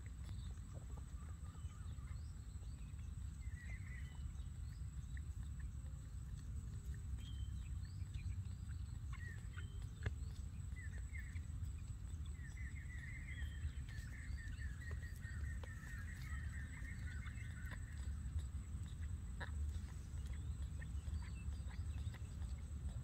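Baby macaque suckling milk from a plastic feeding bottle, with small soft clicks, over a steady low rumble. A run of high chirps comes about halfway through.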